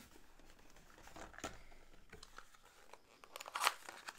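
Faint rustling and crinkling of packaging with small clicks as game miniatures are handled, a denser burst a little past three seconds in.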